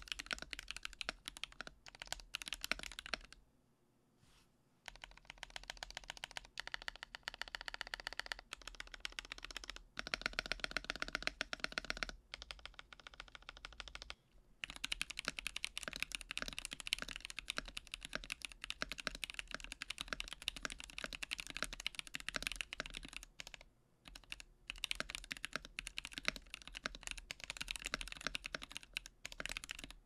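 Fast typing on a YC66 mechanical keyboard with Artifact Bloom Noir keycaps, a dense run of keystroke clacks with a brief pause about four seconds in. The first half is lubed Akko POM Pink switches; after a short break about halfway, it is stock Akko POM Silver switches.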